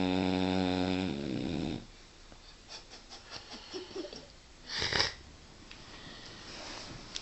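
Dog snoring in deep sleep: one long, low snore that ends about a second in, followed by soft little clicks and one short, loud breathy burst about five seconds in.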